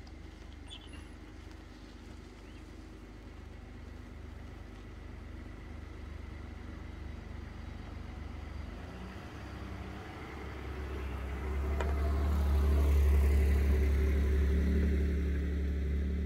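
A motor vehicle's engine running with a low, steady hum, growing much louder about ten seconds in and staying loud to the end.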